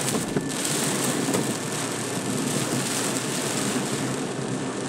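Heavy rain falling on a car's roof and windshield, heard from inside the cabin as a steady, even hiss.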